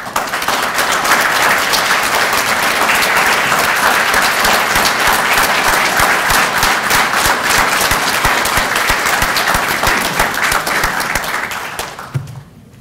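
Audience applause: many people clapping together, which fades out near the end.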